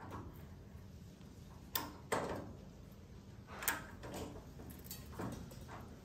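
Hand tap cutting threads into the steel cart frame, turned by a tap wrench: a series of about six short scraping creaks as the tap bites and grinds through the metal. The tap is binding, the hard going of tapping a tight hole.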